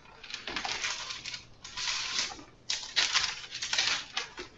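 Thin Bible pages being flipped and rustled through, a run of quick papery swishes and crinkles.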